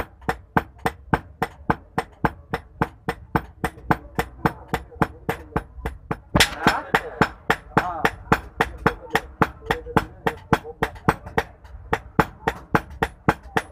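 Hand hammer forging a hot steel chopper (boti) blade held in tongs on a steel anvil: an even run of sharp blows, about three to four a second.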